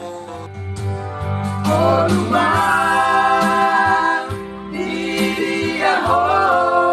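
A group of young men singing together in harmony over sustained low keyboard notes. The voices come in about two seconds in, hold long notes, break off briefly around the middle and come back in.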